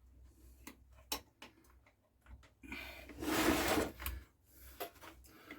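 Hands handling chainsaw parts and fuel line: scattered light clicks and taps, with a scraping rustle lasting about a second in the middle.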